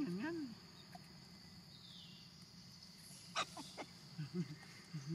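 Young macaques calling: a wavering whimper in the first half second, a few sharp squeaks at about three and a half seconds, then short low grunts. A steady high insect drone runs underneath.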